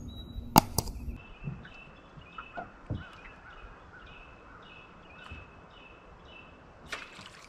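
A bird calling with short, high chirps repeated about two to three times a second over quiet outdoor ambience. A couple of sharp knocks come in the first second.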